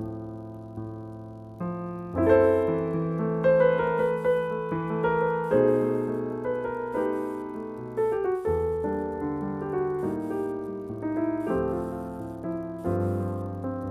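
Solo piano playing chords beneath a melody, each note struck and fading. The playing grows louder about two seconds in.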